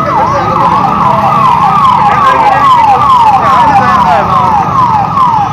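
Police vehicle siren on a fast yelp cycle, each sweep falling in pitch and repeating about two and a half times a second, over a low steady rumble.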